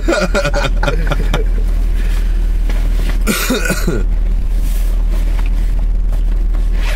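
Steady low rumble of a car's cabin, with short bursts of men laughing and talking in the first second or so and again about three and a half seconds in.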